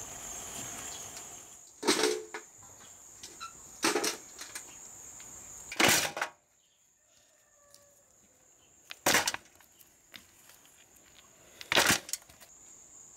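Stones tossed one at a time into a metal bucket: five sharp clanks about two to three seconds apart. Crickets chirr steadily behind them.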